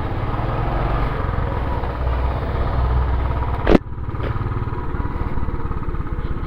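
Motorcycle engine running while riding, with road and wind noise. A single sharp click comes a little over halfway through.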